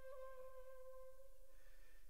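Background flute music: one long held note that fades away about one and a half seconds in.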